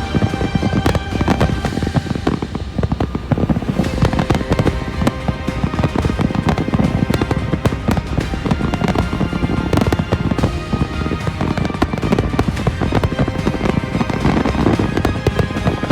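Fireworks display: a dense, unbroken run of bangs and crackles, with music playing alongside.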